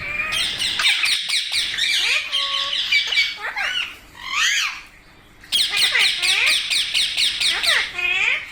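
Several pet rose-ringed parakeets squawking and chattering in rapid, shrill calls, with a short lull a little past the middle.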